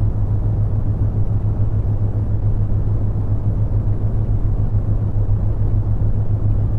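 Steady brown noise: a deep, even rumble with little treble, with a low steady hum near 100 Hz from the theta-wave tone underneath.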